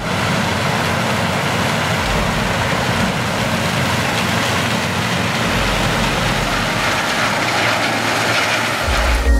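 Fendt 9490 X combine harvester working in standing maize: the steady running of its seven-cylinder AGCO Power diesel together with the threshing and header machinery.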